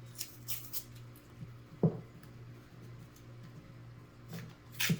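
Paper wrapper of a penny roll crinkling and rustling as it is handled and opened, with a single dull knock about two seconds in.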